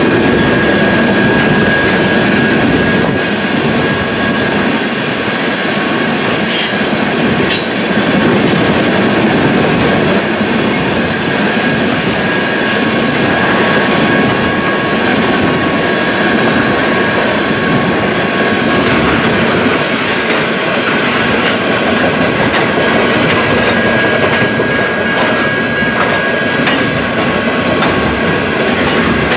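Freight train of tank cars rolling past close by, wheels clicking over rail joints, with a steady high-pitched wheel squeal.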